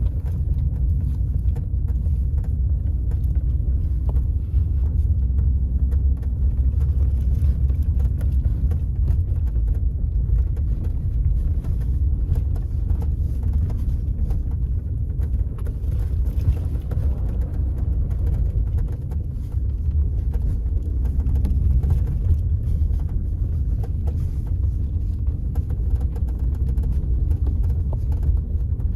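Inside a Kia Rio X's cabin on an uneven road: a steady low road rumble with frequent small clicks, knocks and creaks from the rear. The rattle comes from the folding rear seatback, whose latch bracket plays in its lock on bumps.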